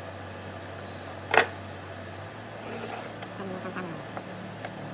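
A single sharp clack about a second and a half in as a metal speed square is set down on the wooden tabletop, then faint scratching of a ballpoint pen ruling a line along a steel rule, over a steady low hum.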